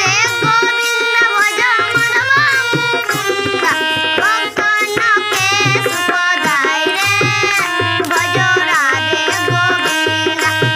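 A girl singing a devotional bhajan over sustained harmonium chords, with a nal barrel drum playing a steady rhythm beneath.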